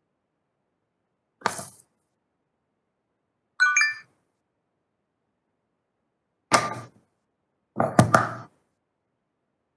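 Brief handling thunks and knocks on a live meeting microphone, cut to dead silence between each by the call's noise suppression, with a short chime of a few quick notes a little before four seconds in: a Webex chat-message notification. The two loudest knocks, with a low hum under them, come about six and a half and eight seconds in.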